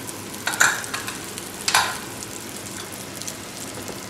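Spatula stirring hot biryani masala in an open aluminium pressure cooker, the masala sizzling steadily, with two sharp knocks of the spatula against the pot in the first two seconds.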